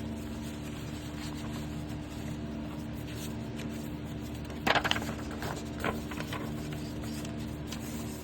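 Paper being handled while a journal is put together: light rustles and taps, with a sharper crinkle of paper about four and a half seconds in, over a steady low hum.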